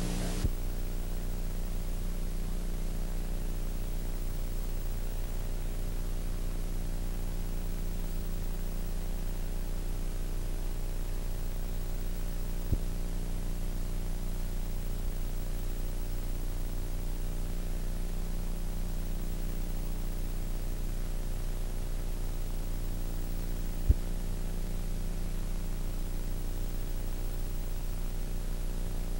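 Steady electrical hum under an even hiss, the background noise of an analog videotape soundtrack, with no music or voice. Two faint clicks, one about halfway through and one near the end.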